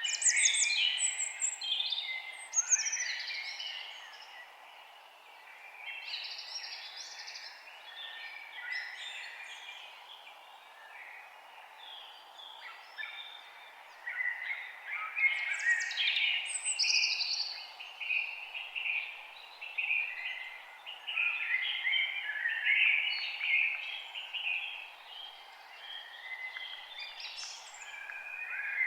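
Several forest songbirds singing at once, a dense overlapping chorus of chirps and trills, busiest near the start and again in the second half, over a steady low background noise.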